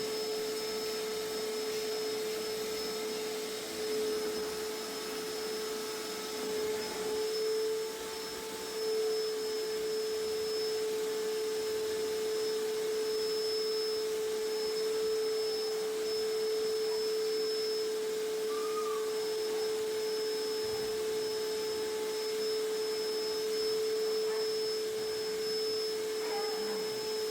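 Vacuum cleaner running steadily: one constant whine over a rushing hiss.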